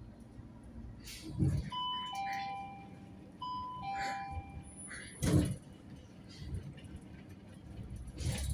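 A city bus's stop-request chime sounds twice in a row, each a high then lower ding-dong, over the bus's steady running rumble. Two sharp knocks come in the cabin, one just before the first chime and a louder one about five seconds in.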